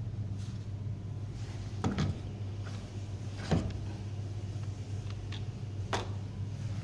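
Steady low hum with three short knocks, about two seconds, one and a half seconds and two and a half seconds apart, from handling a removed CRT television deflection yoke on a tile floor.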